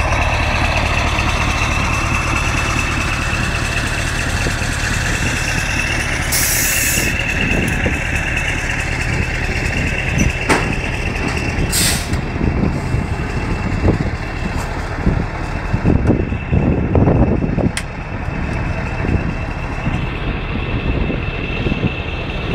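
Mercedes-Benz Actros truck's diesel engine idling steadily, with two short hisses of compressed air from the air-brake system, about six and a half and twelve seconds in. A few knocks and clunks follow later on.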